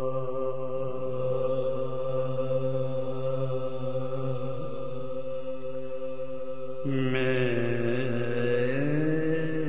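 A man's voice chanting in soz-khwani style, holding one long unbroken note. About seven seconds in the voice grows louder and brighter, and near the end the pitch bends down and back up.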